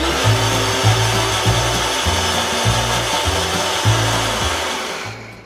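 Electric mixer grinder running at full speed, grinding a thick cooked tomato and cashew masala paste with a little water added; the motor slows and stops near the end.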